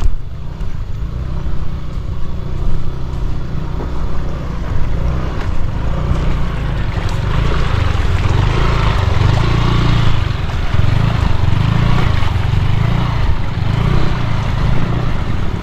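Motorcycle engine running as it rides along a road, with a deep pulsing rumble that grows louder about six seconds in.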